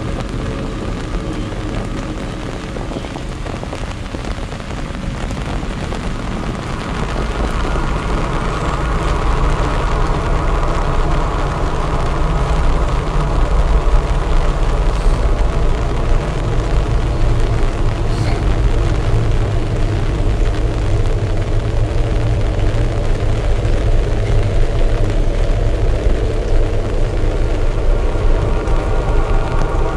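Heavy rain falling steadily. Under it runs a low hum with a rumble that grows louder about a quarter of the way in.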